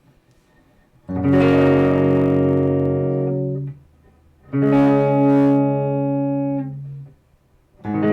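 Electric guitar with Fleor Alnico 5 humbuckers played clean through a Boss Katana Mk II 100 combo amp: after a short pause, three strummed chords, each left to ring for a couple of seconds, the third starting near the end.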